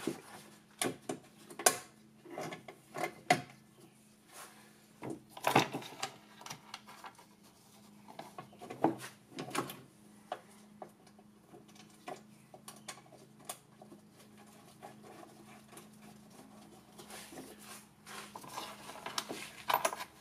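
Scattered clicks and clunks of a golf cart's forward/reverse switch and its metal mounting hardware being handled and set back in place, with one louder knock about five seconds in and a stretch of scraping near the end, over a faint steady low hum.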